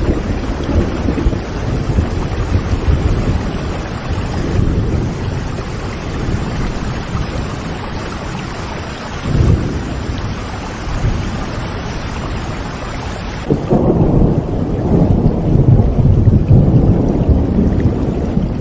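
Steady rain with rolling thunder. About two thirds of the way through, the sound turns deeper and louder, with more low rumble and less hiss.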